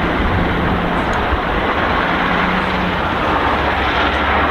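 Shacman heavy dump truck's diesel engine running steadily as the truck drives along a dirt road, a steady engine drone with tyre and road noise.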